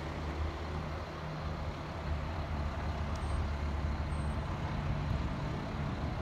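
Diesel engine of a semi tractor hauling an end-dump trailer, running steadily at a low, even pitch and growing slightly louder toward the end.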